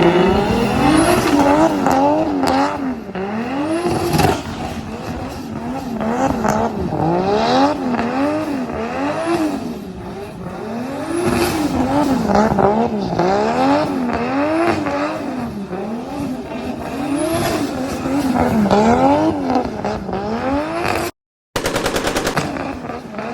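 An electronic siren wailing, its pitch rising and falling in a steady, regular cycle about once a second, over the rough rattly running of a car engine and exhaust.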